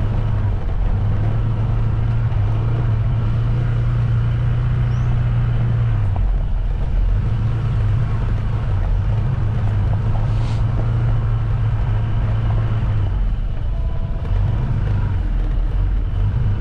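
Vehicle engine and road noise while driving, a steady low engine hum that eases off briefly twice, about six seconds in and again near the end.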